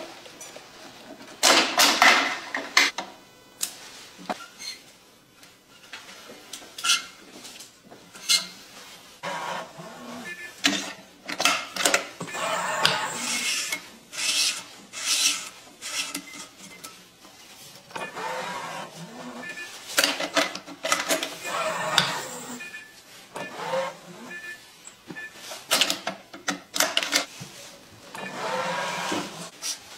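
Badminton string rubbing as it is pulled by hand through the racket's grommets and woven across the main strings, in several long pulls, with short clicks in between.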